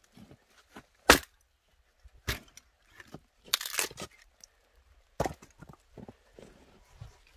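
Firewood being chopped with an axe: sharp separate blows, the loudest about a second in, and a longer tearing crack of wood splitting apart a little past the middle.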